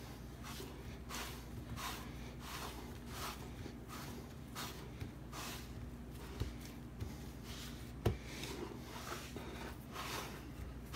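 Palms pressing and pushing pizza dough across an oiled deep-dish pan: soft, repeated rubbing and squishing, one to two presses a second, with a single sharp click about eight seconds in.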